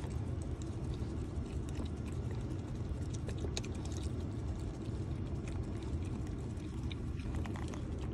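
Corgi puppy licking and lapping whipped cream from a small paper cup, with quick wet clicks and smacks of its tongue against the cup, over a steady low rumble from the car.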